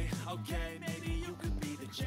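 Background music with a steady beat, about two low beats a second under held chords.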